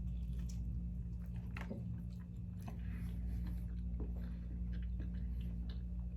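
A person chewing a bite of Flamin' Hot Cheetos sushi roll close to the microphone, with scattered small wet mouth clicks, over a steady low hum.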